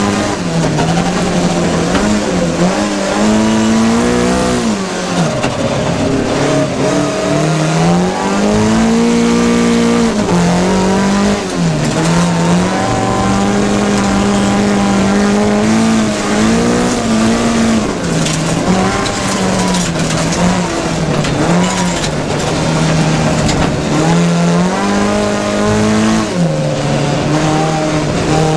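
Rallycross race car engine running hard at racing speed. Its pitch climbs and drops again and again as it is accelerated, shifted and lifted off through the corners.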